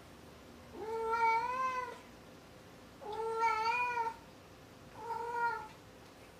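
A cat meowing three times, each a drawn-out call with a slight wavering rise in pitch, the third one shorter.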